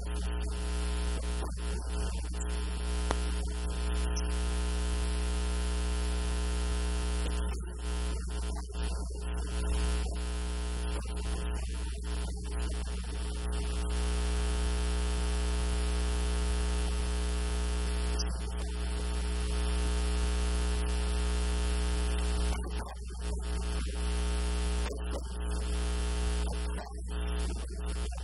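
Steady electrical mains hum and buzz with many evenly spaced overtones, under a hiss of static. The hiss briefly thins out several times.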